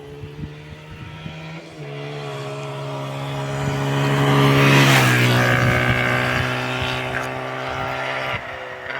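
Jawa 350 motorcycle engine running under way, growing louder and slightly higher to a peak about five seconds in. There the pitch drops sharply and it fades a little. Its pitch also steps near two seconds and again near the end.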